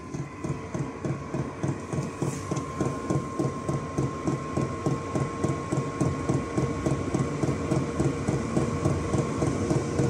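Chinese diesel air heater running at its highest setting: its fuel pump ticks in a fast, even rhythm over the steady whine of the heater's fan. The pump is partly muffled but still noisy.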